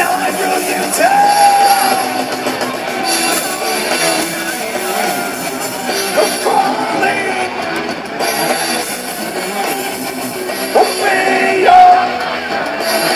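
Rock band playing live through a PA, with a singer's held, sliding notes over the band.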